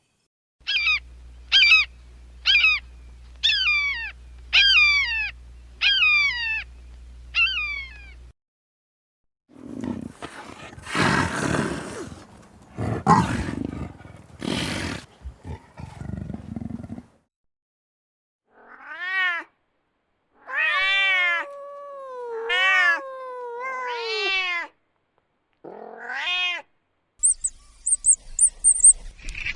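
A run of animal calls. First come about seven short, falling, pitched cries at roughly one a second. Then a rough, noisy growling or roaring stretch of several seconds, then five long, arching, cat-like cries, some with a drawn-out falling tail. A quick burst of high chirps comes near the end.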